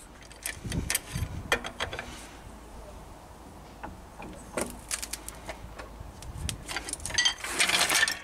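Metal clinks and knocks as a steel axle stand is set under a raised axle and a trolley jack is let down from it, with a denser clatter near the end.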